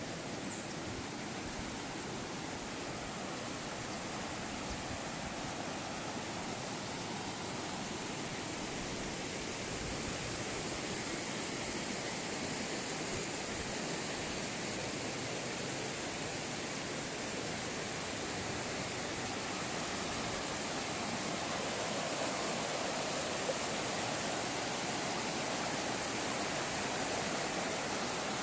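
Steady rush of flowing stream water, growing slightly louder over the stretch.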